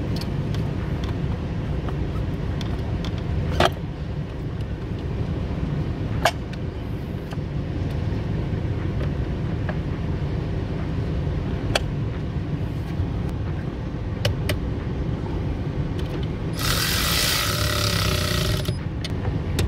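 A few light clicks and knocks as a car battery and its terminal clamps are handled, then a cordless ratchet runs for about two seconds near the end, tightening a battery terminal nut. A steady low hum lies underneath.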